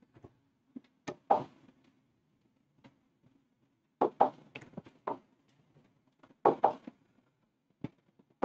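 A stylus or fingertip tapping on an interactive touchscreen board, short sharp taps and knocks in small clusters, as tools on the board's toolbar are tapped while the screen is not responding properly.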